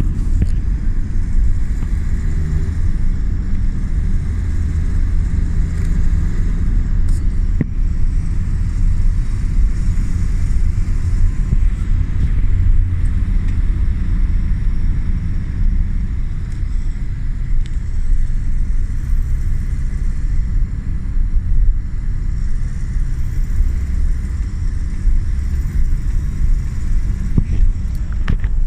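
Honda CR-V III's 2.2 i-DTEC four-cylinder turbodiesel running steadily with a suspect mechanical noise, which the owner wonders may come from the oil pump chain.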